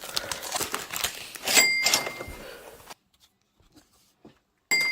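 Foil booster-pack wrapper crinkling and tearing as a trading-card pack is opened and handled, with a brief sharper crinkle carrying a few thin high tones about a second and a half in. The sound cuts off to dead silence about three seconds in.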